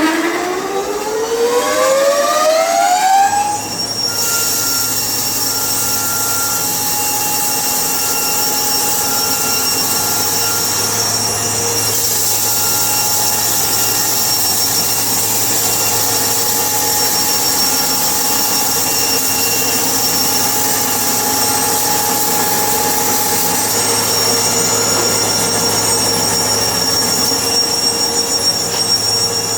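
A sawmill's motor-driven saw spins up, rising steeply in pitch over the first three seconds or so, then runs steadily at full speed.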